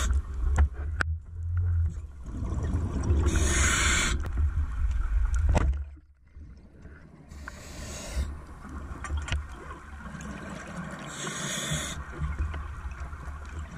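Scuba diver breathing through a regulator underwater: three bursts of exhaled bubbles, each about a second long and about four seconds apart, over a steady low rumble. A few faint clicks come in between the bursts.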